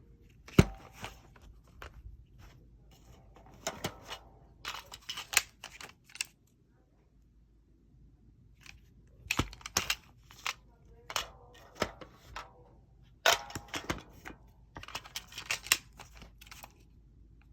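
Pistol magazines being handled: a series of sharp clicks and clattering rattles in clusters, with a loud click about half a second in.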